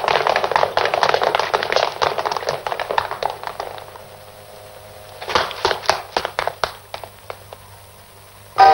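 Rapid, overlapping footsteps of a crowd running on pavement, a dense clatter that thins out and fades about four seconds in. A few scattered taps follow, and piano music comes in at the very end.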